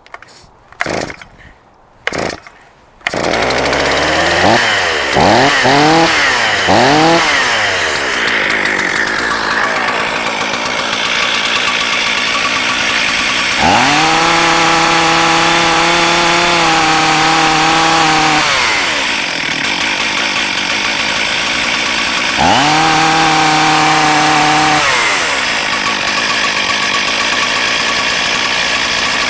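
STIHL MS440 two-stroke chainsaw pull-started with a few short tugs, catching about three seconds in. It is blipped several times, then idles, is held at full throttle for about four seconds, idles again, and is run up for a couple of seconds more.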